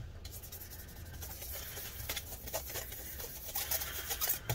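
A small brush rubbing and scratching, with scattered light taps, as dust is brushed off the laptop's cooling fans into a trash can. The strokes come thicker near the end.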